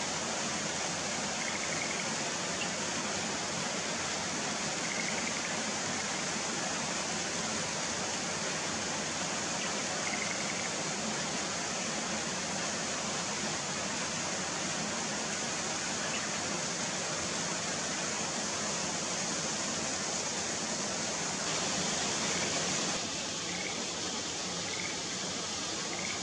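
Steady rush of running water, with faint short calls of Schlegel's green tree frogs recurring every few seconds.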